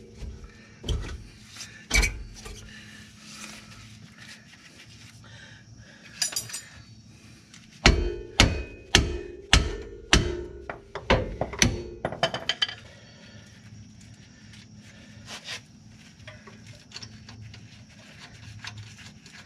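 Hammer blows on a Mercedes ML W163's rear suspension arm, knocking it into line with its bolt hole. Two knocks come in the first two seconds, then a quick run of about eight ringing strikes from about eight seconds in, followed by quieter scraping and handling of the parts.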